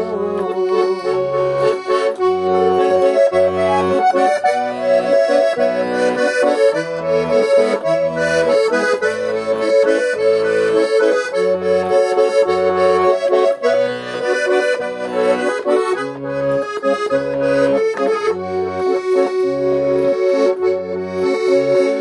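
A garmon (Russian button accordion) playing an instrumental passage, with no singing: a melody over a steady, rhythmic bass-and-chord accompaniment.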